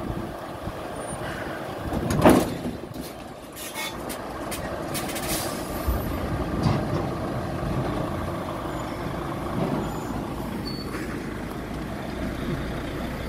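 Diesel engine of a heavy tractor unit running steadily. There is one loud burst of air hiss about two seconds in, then several shorter hisses over the next few seconds, from the truck's air brake system.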